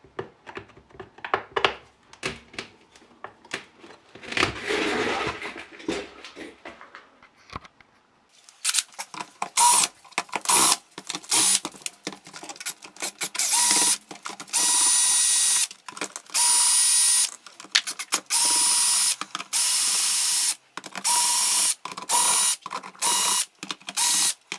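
Tool work on the machine: scattered clicks and knocks at first, then, from about a third of the way in, a tool running in short repeated bursts of about a second each, with a steady whine.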